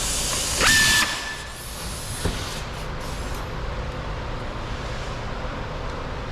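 Power driver briefly spinning up to a steady whine for under a second, backing out a fender screw. A single click follows.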